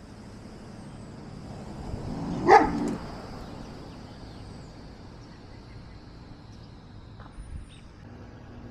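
A dog barks once, sharply, about two and a half seconds in.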